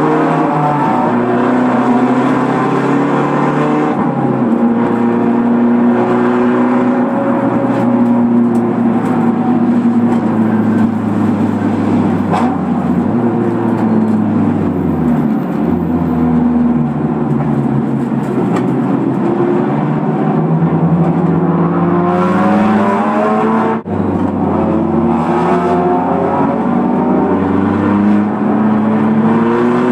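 Mazda race car's engine at racing speed, heard from inside the stripped cockpit. The revs repeatedly climb and drop with gear changes, with one brief cut in sound at a shift about three-quarters of the way through.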